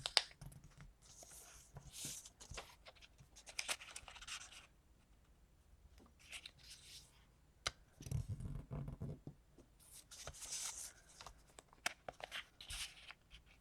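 Sheet of paper being folded and creased by hand: rustling and scraping in several short bursts, with a duller handling sound about two-thirds of the way through.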